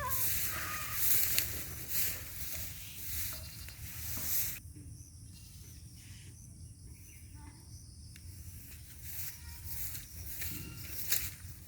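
Goat pen ambience: a short bleat right at the start, then rustling and scuffing over a steady low rumble. The rustling and hiss drop away about four and a half seconds in, leaving a quieter stretch.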